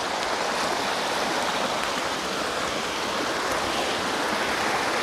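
A creek of rushing water sliding down a long strip of bedrock, making a steady rush.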